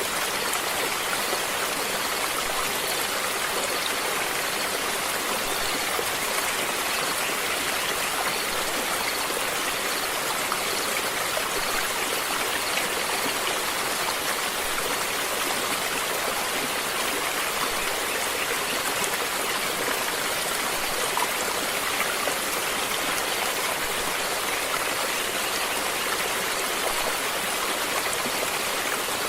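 Stream water running over rocks, a steady rushing and splashing.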